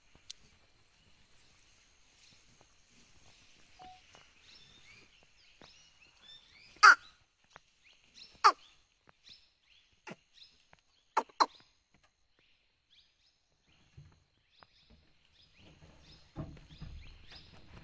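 Quiet forest ambience with faint bird calls, broken by five sharp clicks, the loudest about seven seconds in and a close pair near eleven seconds. A low rumble comes in near the end.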